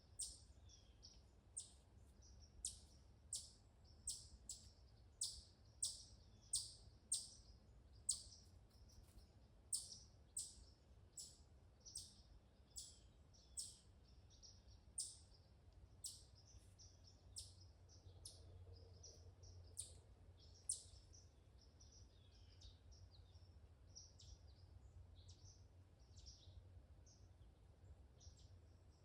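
Small woodland birds calling: a steady series of sharp, high chips, about one and a half a second, for roughly the first twenty seconds, then only fainter, softer twittering. A faint low rumble of background noise lies underneath.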